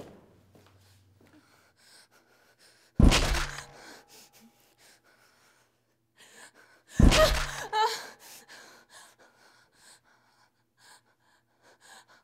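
Two sudden loud hits about four seconds apart, the second with a woman's sharp gasping cry; soft breathing between.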